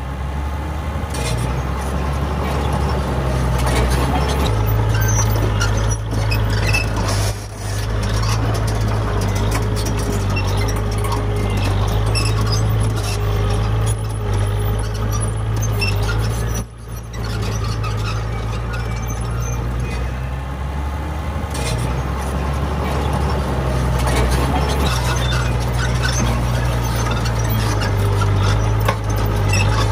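Diesel engine of heavy earthmoving machinery running steadily under load, with a wavering whine over the engine and two brief dips in level, about 7 and 17 seconds in.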